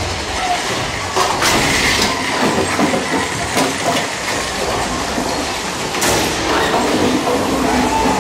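Mine-train roller coaster cars clattering and rattling along the track at speed, heard from on board, with sharp clatters about a second and a half in and again near six seconds.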